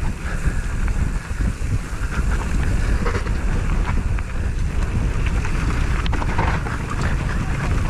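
Wind buffeting the microphone on a moving vehicle, a heavy low rumble with the vehicle's running noise underneath.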